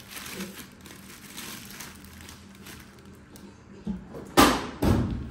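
Quiet handling noise, then three sharp knocks in quick succession about four seconds in, the middle one the loudest, like objects being knocked or set down during food preparation.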